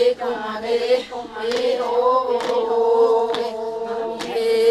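A group of women singing together in unison, a chant held on nearly one note with slight bends in pitch, with a few sharp clicks over it.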